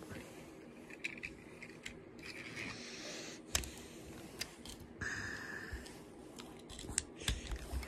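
Faint handling noise of die-cast toy cars being picked up and moved over a bedsheet: scattered small clicks and scrapes, with a few sharper clicks near the end.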